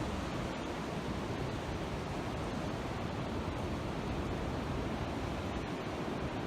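Strong winter wind rushing steadily through large oak trees, with low rumble from the wind on the microphone.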